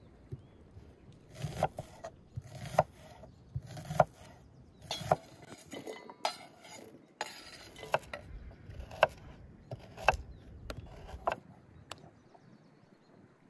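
Chef's knife chopping onion on a wooden cutting board: sharp knocks of the blade on the board, roughly one a second. Around the middle the blade scrapes across the board, sweeping the chopped onion into an enamel bowl.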